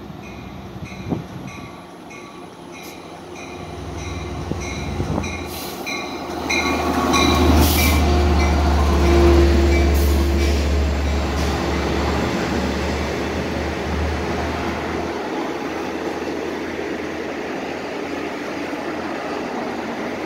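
Long Island Rail Road diesel train of bilevel C3 coaches approaching and passing close by. A low diesel rumble builds and is loudest about seven to ten seconds in, then gives way to the steady rumble and rush of the coaches' wheels on the rails. A metallic ding repeats about two and a half times a second during the approach and stops about six seconds in.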